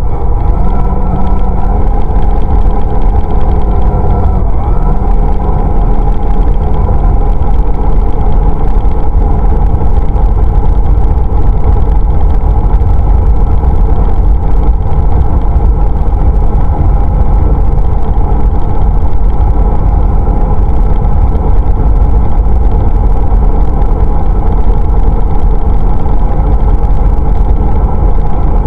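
Onboard sound of a radio-controlled car driving on asphalt: a loud, steady rumble from the tyres and chassis with a held drivetrain hum over it.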